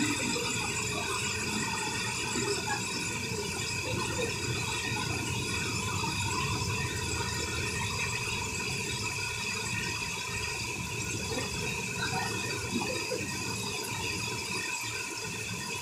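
Heavy rain pouring down steadily, a constant hiss of the downpour falling on the street and parked cars.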